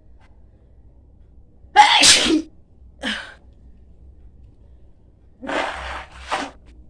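A woman sneezing hard about two seconds in, with a shorter sound a second later. She sneezes again near the end, two in quick succession. The first sneeze is the loudest.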